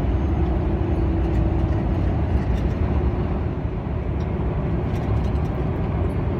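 Steady low engine and road rumble inside a lorry cab as the truck runs downhill with its retarder set to hold 80 km/h, with a faint steady hum in the first couple of seconds.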